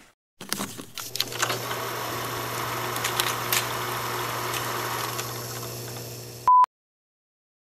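Old-film intro sound effect: a crackling hiss with scattered clicks over a steady low hum, fading slowly. It cuts to dead silence, broken near the end by a short high beep from a film countdown leader.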